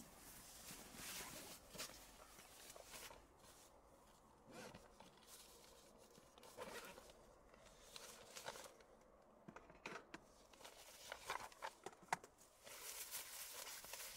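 Faint rustling and a few light clicks and knocks of food and kit being handled and set down on a camp table, including a plastic egg carrier and a tin can, with the handling busier near the end.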